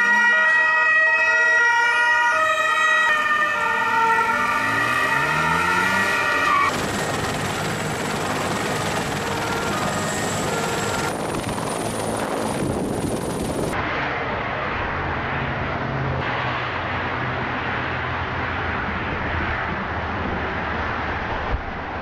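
A two-tone police siren wails for the first six or seven seconds. After that comes steady helicopter turbine and rotor noise with a thin high whine.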